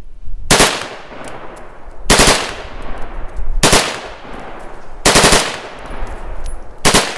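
Beretta BM-59 select-fire rifle in 7.62×51mm NATO firing five short full-auto bursts of a few rounds each, about one and a half seconds apart. Each burst is followed by a fading echo.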